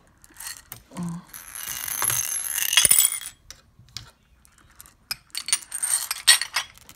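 Glass pearl beads rattling in small china bowls and the china dishes clinking against each other as they are picked up and moved. The clatter comes in two spells, a longer one soon after the start and a shorter one near the end.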